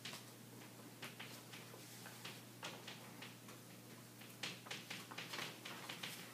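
Chalk writing on a chalkboard: faint, irregular taps and short scratches of the chalk, thicker about four to five seconds in.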